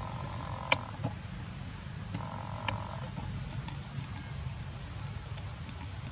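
Two animal calls, each about a second long, the first ending about a second in and the second around two and a half seconds in, over a steady low rumble. A run of sharp clicks comes through, the loudest under a second in. A steady high whine stops near the end.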